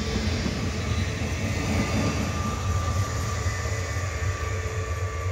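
Electric multiple unit passing over a level crossing: a steady rumble of wheels on rail with a faint steady tone above it, easing a little near the end as the train moves away.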